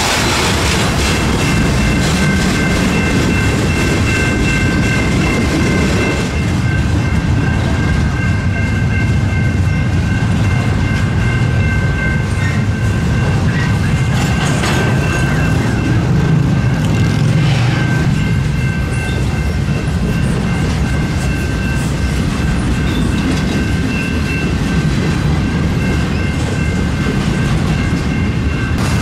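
Double-stack intermodal freight cars rolling past: a steady, loud rumble of wheels on rail, with thin, steady high tones over it for most of the time.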